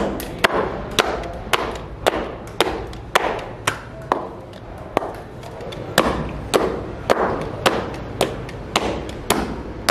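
Mutton being pounded into a fine paste on a stone slab for rista meatballs, with a wooden mallet: steady thuds about twice a second.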